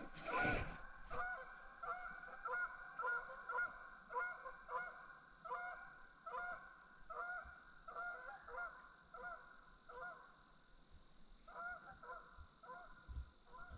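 Canada geese honking repeatedly, about two calls a second, with a short pause a few seconds before the end. A brief burst of noise about half a second in.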